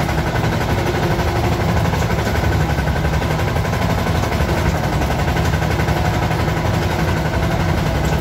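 Yağmur YET 510 patpat's single-cylinder diesel engine chugging steadily while driving, a rapid even pounding heard from the driver's seat in its cab.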